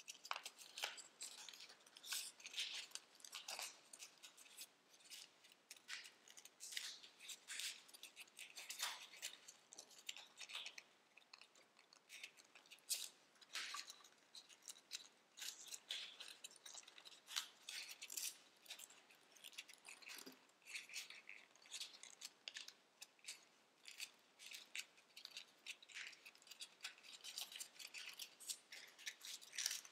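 Tissue foil origami paper crinkling and crackling as hands fold, pinch and crease it: a faint, irregular run of short sharp crackles.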